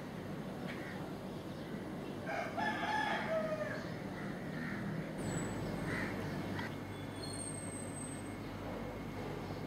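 A rooster crowing once, about two seconds in, a drawn-out call that falls in pitch at the end, over steady background noise.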